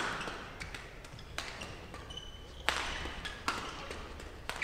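Badminton rackets hitting a shuttlecock with sharp cracks, about one a second, echoing in a large sports hall, with a few short shoe squeaks on the court floor.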